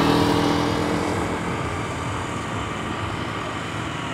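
A motor's steady hum, loudest at the start and slowly fading away, over outdoor background noise.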